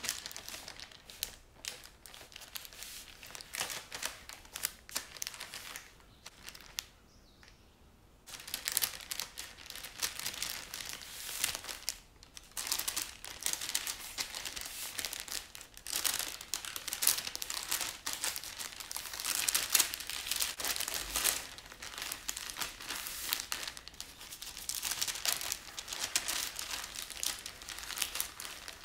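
Baking parchment crinkling and rustling in irregular bursts as a sponge cake sheet is rolled up inside it by hand. The crinkling thins out for a couple of seconds, then comes back denser and louder.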